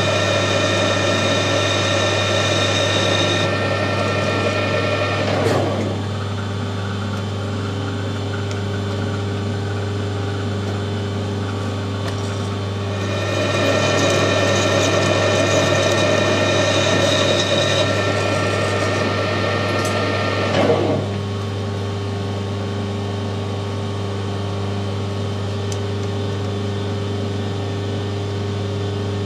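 Metal lathe running steadily while a carbide insert turns down a stainless steel shaft, reducing the end to a quarter inch for a thread. There are two cutting passes, the first stopping suddenly about five seconds in and the second running from about 13 to 21 seconds, with the lathe humming on its own between and after them.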